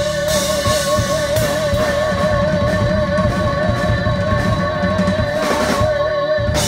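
Live rock band with drum kit, electric bass and electric guitar holding the final note of a song: one long note with steady vibrato sustains over busy drum fills and cymbals, then ends.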